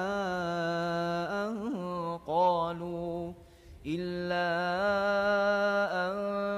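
A man reciting the Quran unaccompanied in a slow melodic style, drawing out long held notes with ornamented pitch turns, with a short breath pause about three and a half seconds in.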